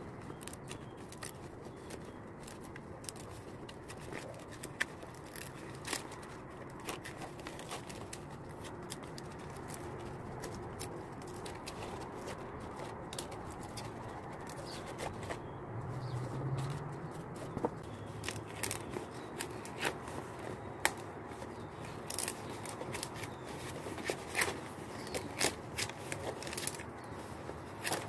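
Large fresh green leaves rustling and crackling in the hands as their stiff midribs are stripped off, with many scattered sharp snaps and clicks, more frequent in the second half.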